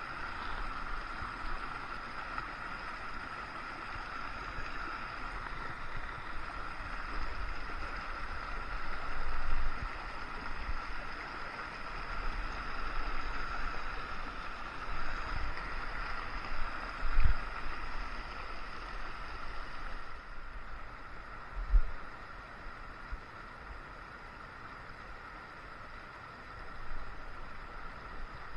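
Small rocky creek rushing over stones in a steady hiss, softening a little about two-thirds through. A few low thumps of wind or bumping on the microphone.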